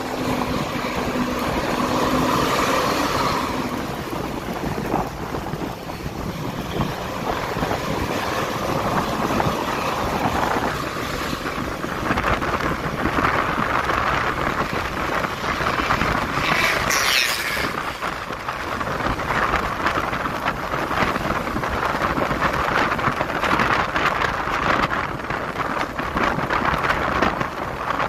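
Wind rushing over the microphone on a moving vehicle, mixed with steady engine and road noise from traffic.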